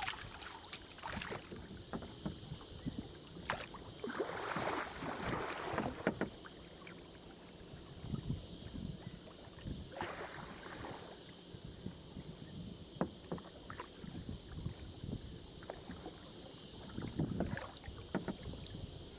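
Kayak paddling: paddle blades dipping and pulling through the water in irregular splashy strokes, with water dripping and trickling between them, over a steady hiss.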